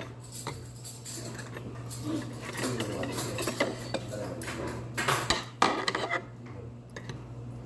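Metal chopsticks clinking and scraping against a black pot and metal dishes, with a louder clatter of several strikes about five seconds in. A steady low hum runs underneath.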